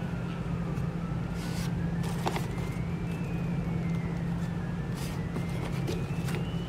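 A steady low hum with a faint tone that slowly slides down in pitch and back up, and a few brief rustles of crepe-paper streamer being handled and pressed onto a paper to-go box.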